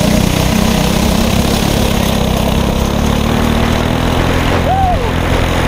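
Predator 212cc single-cylinder go-kart engine in Stage 1 trim, with the governor removed, a header and muffler, a performance air filter and a rejetted carburetor, running hard under load as the kart laps the course. Its pitch stays nearly constant.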